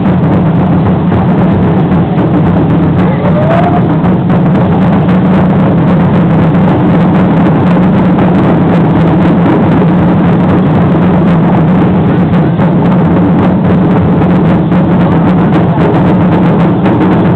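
Loud, continuous drumming for an Aztec danza, the beat of the large upright huehuetl drum blurring into a dense, steady rumble. A brief rising tone cuts through about three and a half seconds in.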